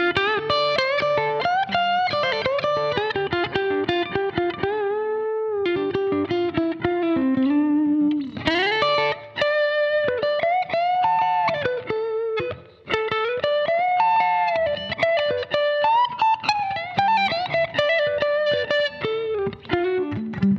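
Clean electric guitar on its neck pickup, through a clean amp with a little room reverb, playing melodic single-note licks with string bends and vibrato, with two brief pauses between phrases.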